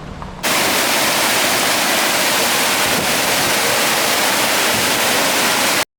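Loud, steady rush of flowing water, cutting in suddenly about half a second in and stopping abruptly just before the end.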